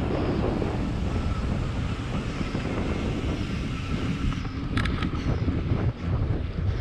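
Wind buffeting the microphone of a camera riding along on a gravel bike at speed, a steady low rumbling rush. There are a couple of short sharp clicks just under five seconds in.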